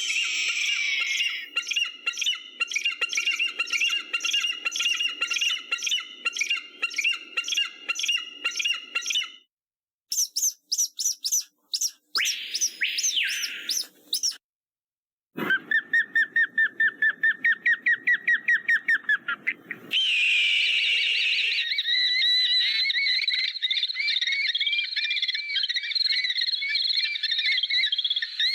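Recorded calls of eagles and hawks, several different birds one after another: first a run of repeated high cries about two a second, then after a short silence quick chipping notes and a couple of falling screams, then a fast series of about four notes a second, and finally a long wavering chatter.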